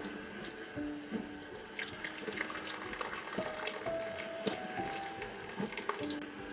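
Water running steadily with a fizzy, splashing hiss, over soft background music.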